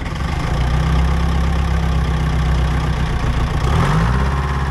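Old P&H excavator's Detroit Diesel engine idling steadily, just started, with a brief rise in revs shortly before the end. The owner suspects junk water in the fuel is keeping it from making power.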